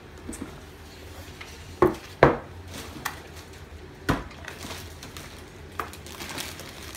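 Sharp knocks and clatter of a small clear plastic cup being handled and knocked against a kitchen counter: two loud knocks close together about two seconds in, then two more spaced out.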